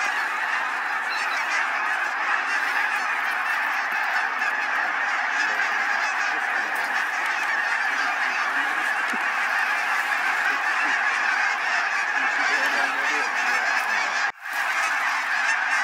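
A huge flock of snow geese calling overhead: a dense, steady din of many overlapping calls. It cuts out for a split second about fourteen seconds in, then resumes.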